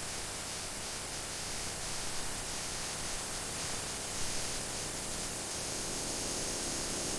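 Steady rain, heard as an even hiss with no distinct drops or tones.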